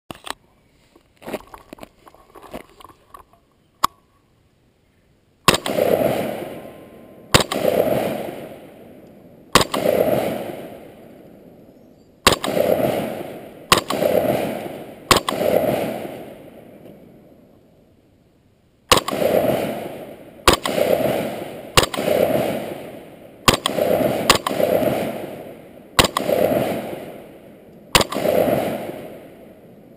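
AR-15 rifle firing single shots, about fourteen of them spaced one to four seconds apart, each a sharp crack followed by an echo fading over a second or two. Before the first shot there are several seconds of small clicks and handling noise. The sound is picked up by a GoPro mounted on the rifle.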